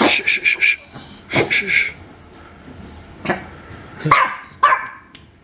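Dogs barking and yipping in short bursts: a quick run of barks at the start, a pair soon after, then single barks.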